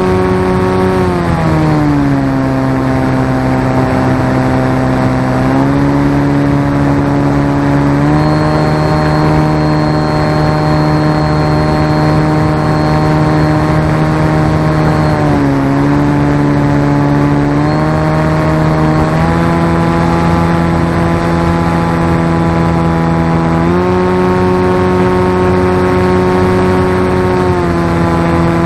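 RC flying wing's motor and propeller running in flight, heard from the airframe. The pitch drops about a second in, climbs back in steps around 6 and 8 seconds, dips briefly around 15 seconds, steps up again around 19 and 24 seconds and falls near the end as the throttle is changed. Under it runs a steady rush of air.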